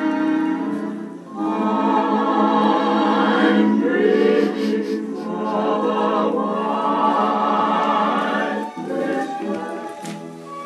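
Choral music: a choir singing long held chords, with short breaks about a second in and near the end.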